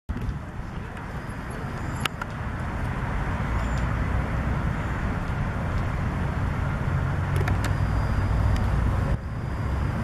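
Motor vehicle noise: a car engine running with road traffic, a low rumble that grows louder over several seconds and eases briefly near the end, with a few faint clicks.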